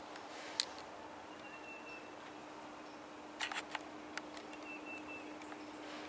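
Handling noise from a handheld video camera: a few sharp clicks and taps, with a cluster about three and a half seconds in, over a faint steady hum.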